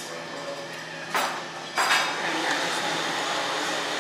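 Metal fork and spoon scraping and clinking against ceramic plates of saucy noodles, with two short scrapes a little past one second in and just before two seconds, over a steady background hum.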